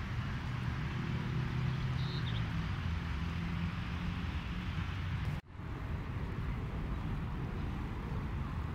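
Steady low hum of distant road traffic, cut by a brief drop-out about five and a half seconds in.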